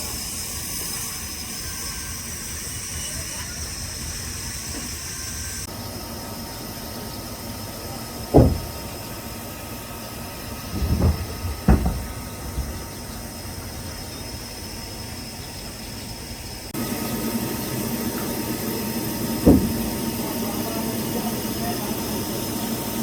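Sawmill machinery running steadily, with four heavy thuds: one about a third of the way in, two close together near the middle and one more later. The steady noise changes abruptly twice.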